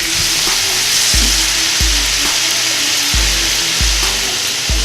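Seasoned chicken breast frying in hot olive oil in a pot, a dense steady sizzle.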